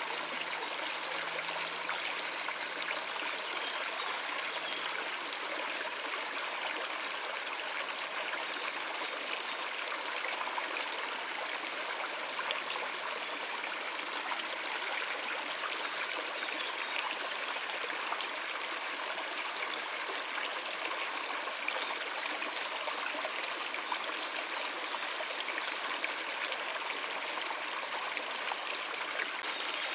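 Stream of water running over rocks, a steady splashing rush with trickles. A few short, high bird chirps sound about three quarters of the way through.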